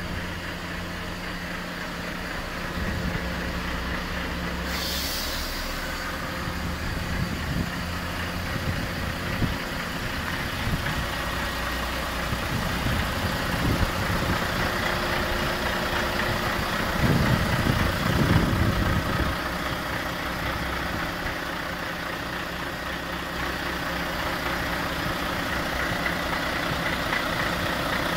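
Volvo FMX 460's 13-litre straight-six diesel idling steadily, with a brief hiss of air about five seconds in and a louder rough rumble for a couple of seconds past the middle.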